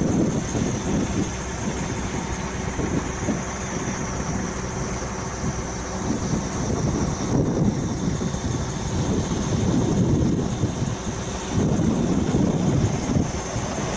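Wind buffeting the microphone in uneven gusts, a rumbling rush that swells and drops every second or two.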